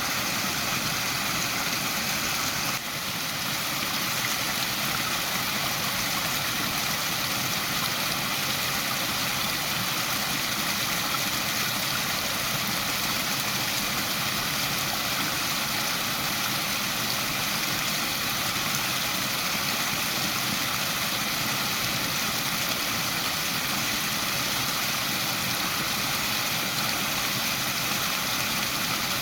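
Small waterfall, water falling and rushing in a steady, unbroken hiss, with a brief dip in loudness about three seconds in.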